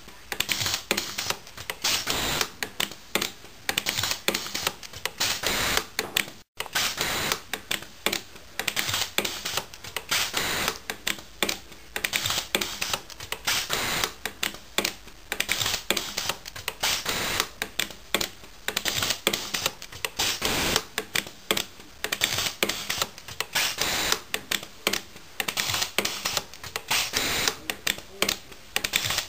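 Jewellery pulse TIG micro-welder firing a rapid series of spot-weld pulses, each one a sharp tick, several a second in uneven runs, with a momentary break about six and a half seconds in.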